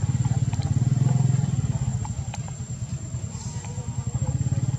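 A small engine running with a low, fast-pulsing rumble, louder at first, easing off mid-way and swelling again near the end, with a thin steady high tone above it.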